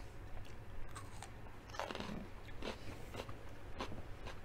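Close-up chewing of a raw carrot stick: irregular wet crunches as it is bitten and ground between the teeth.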